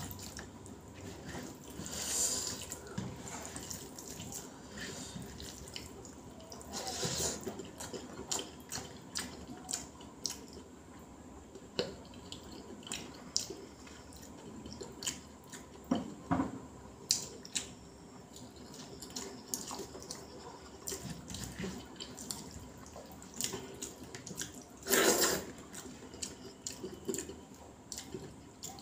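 Wet, squishy eating sounds: fingers squeezing and mixing rice with sambar on a banana leaf, and chewing and lip-smacking, made of many short wet clicks, with a louder burst late on.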